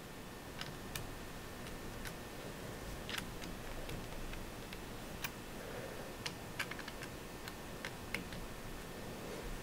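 Faint, irregular light clicks and ticks as the metal elevation turret cap of a Vortex PST Gen II riflescope is handled and fitted back onto the turret by hand, about a dozen scattered clicks in all.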